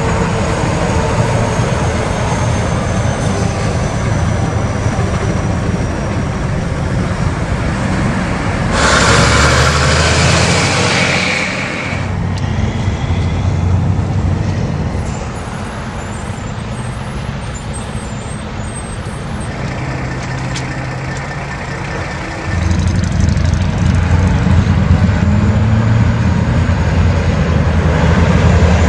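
Diesel semi-trucks driving past on a busy road, with steady engine rumble and traffic noise. About nine seconds in comes a loud burst of hiss lasting about three seconds.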